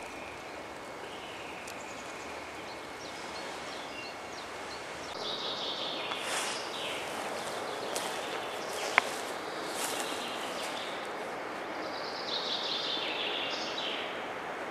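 Forest ambience: a steady background hiss with small birds chirping and singing now and then, and a single sharp click about nine seconds in.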